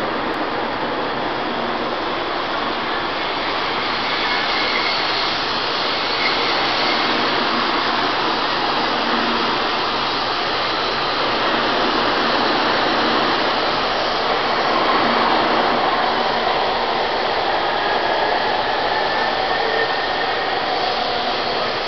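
Taiwan High Speed Rail 700T high-speed trainset pulling out of the station: a steady rushing hiss, a little louder midway, with faint rising whines near the end.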